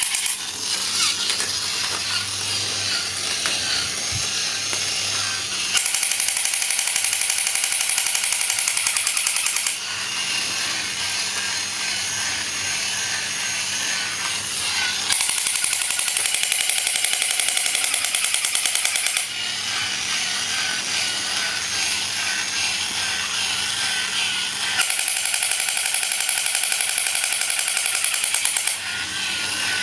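A small motor-driven tool running continuously, growing louder and harsher in three stretches of about four seconds each.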